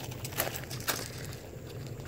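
Footsteps crunching on loose gravel, two steps in the first second, then quieter.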